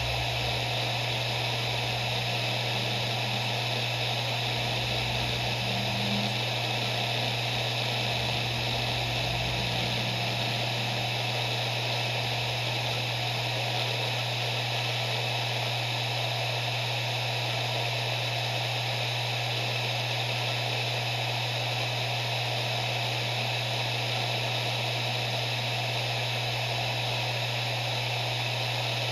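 Maxtor MaXLine Plus II 7Y250M0 three-platter 7200 rpm hard drive spinning steadily at speed: a steady low hum with an even whirring hiss above it. There are a few soft low rumbles in the first ten seconds.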